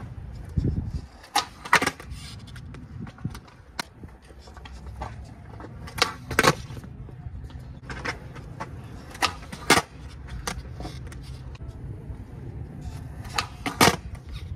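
Skateboards on a concrete skate park: wheels rolling under a low rumble, with sharp wooden clacks of boards being popped and landing, in pairs about half a second apart, four times.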